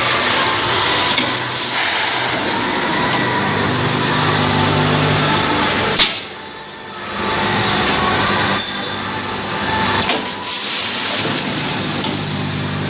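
Automatic packing machine with a weigher running: a steady mechanical hum and whir, with one sharp loud click about halfway through after which the noise drops briefly, and a few lighter clicks a few seconds later.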